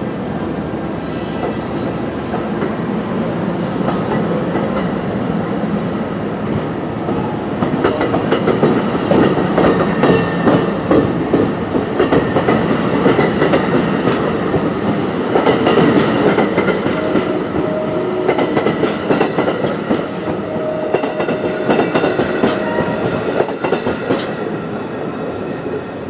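Bi-level passenger coaches of an NJ Transit train rolling past, wheels clacking over rail joints, with a thin high-pitched wheel squeal in the first few seconds. The clacking grows louder about eight seconds in and fades near the end as the last car goes by.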